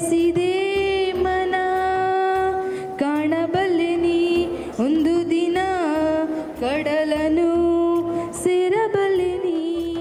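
A woman singing solo into a handheld microphone, long held notes joined by ornamented bends and turns in pitch, with a brief breath pause about three seconds in.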